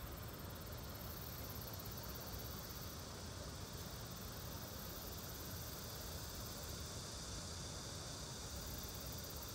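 Steady outdoor background of insects, an even high-pitched chorus over a low rumble, with no distinct events.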